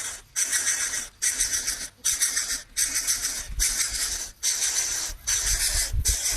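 Coucal chick making a steady run of harsh hissing rasps, a little more than one a second.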